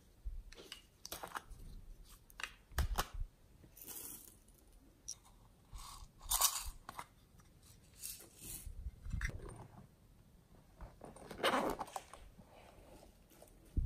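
Small plastic containers handled close to the microphone: irregular clicks, taps and crinkly, crunchy rustling as they are held up, turned and opened, with two louder rustles about six and eleven seconds in.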